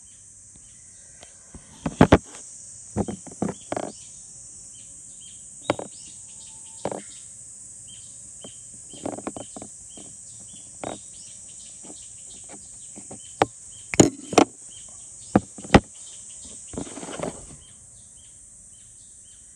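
Handling noise while Teflon tape is pulled off its reel and wrapped around a two-stroke oil pump shaft: scattered sharp clicks and knocks, the loudest about two seconds in and again around fourteen to sixteen seconds in. A steady high chirring of crickets runs underneath.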